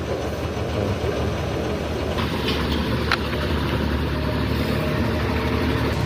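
An engine running steadily at idle as a continuous low mechanical hum, with a couple of light clicks around the middle; the hum cuts off abruptly at the end.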